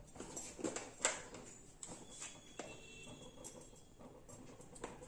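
Faint, scattered light taps and clicks of a small plastic spoon scooping salt and touching a steel plate, the clearest about a second in.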